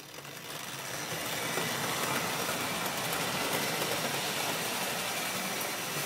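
Hornby Dublo model train, the die-cast 'Duchess of Atholl' locomotive with its coaches, starting off and running past on three-rail metal track. The electric motor and wheels run with faint clicks over the rails, building over the first two seconds, then steady.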